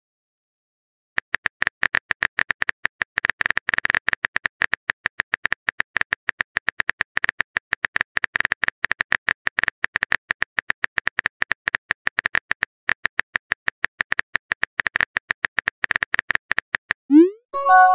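Simulated phone-keyboard typing: a long run of rapid, unevenly spaced clicks starting about a second in, from a texting-story app's typing sound effect. Near the end a short rising pop marks the message being sent.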